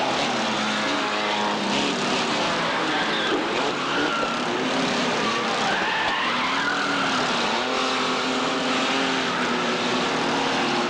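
Several banger-racing cars' engines revving at once, their pitches rising and falling over one another, over a steady noise of tyres spinning and skidding on the dirt track.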